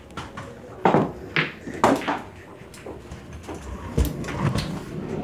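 A run of loud knocks and bangs: three about half a second apart about a second in, then a sharp thud about four seconds in.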